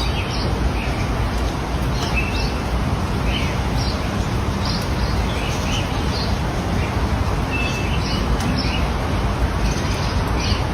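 Birds chirping in short calls every second or so over a loud, steady rushing noise.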